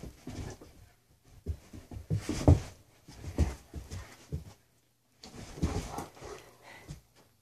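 Two German shepherds scrambling and pouncing on carpet after a laser dot: irregular thumps and scuffs of paws and bodies, with some dog panting. The loudest thump comes about two and a half seconds in, and the sound drops out briefly twice.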